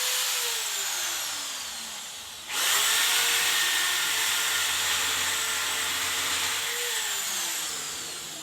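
Electric power drill, likely drilling holes for the curtain brackets. The motor spins down as the trigger is released, starts again sharply about two and a half seconds in, runs at a steady pitch for about four seconds, then winds down near the end.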